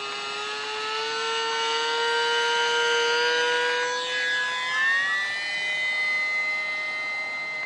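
ParkZone Icon A5 ultra-micro RC flying boat's small electric motor and propeller whining, the pitch creeping up and then rising more sharply about five seconds in.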